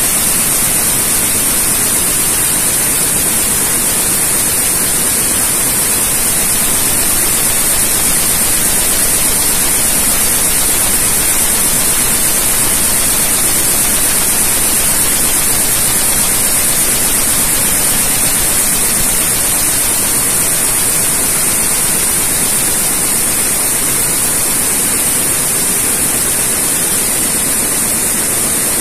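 Tsudakoma weaving loom running at speed: a loud, steady, hiss-like machine din with no separate beats standing out.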